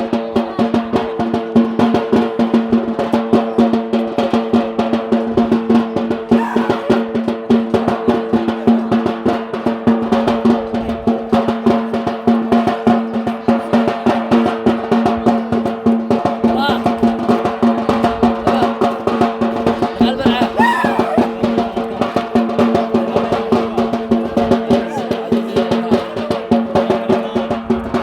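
Music for the Yemeni bara' dance: fast, continuous drumming in dense rolls over a steady droning tone. A few short voice calls rise above it now and then.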